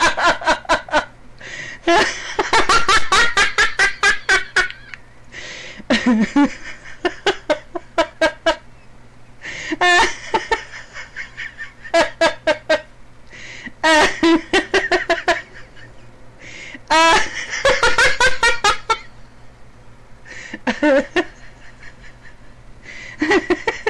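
A woman laughing hard in repeated bouts of quick "ha-ha-ha" pulses, with breaths between the bouts.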